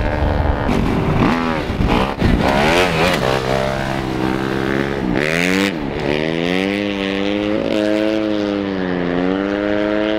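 Engine of a small off-road utility vehicle running along a gravel road. Its note dips and climbs again several times as the throttle eases and opens, with gravel and wind noise underneath.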